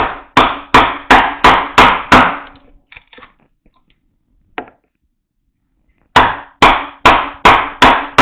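Mallet blows driving a mortise chisel (bédane) into wood while a mortise is chopped by hand: a run of seven quick, evenly spaced blows, about three a second, each with a short low ring, then a pause and six more blows.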